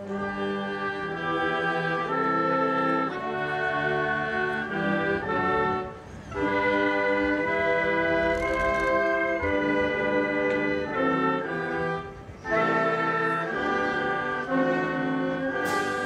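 Military marching band's brass and woodwinds playing slow, held chords in phrases, with brief breaks about six and twelve seconds in.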